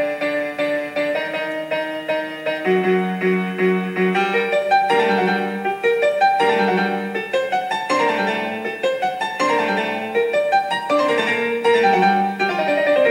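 Background music led by piano, with held notes and chords moving at an unhurried pace.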